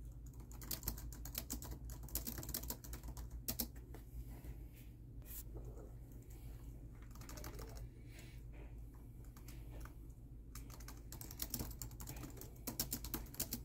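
Typing on a laptop keyboard: quick runs of keystrokes at the start and again near the end, with a sparser, slower stretch of taps in the middle.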